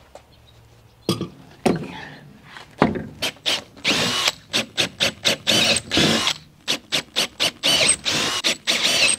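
Power drill boring a hole in metal in repeated short bursts, the bit squealing as it cuts.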